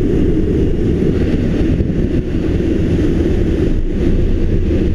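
Loud steady rush of wind and propeller-plane engine noise inside the cabin of a jump plane in flight with its door open, the wind buffeting the microphone.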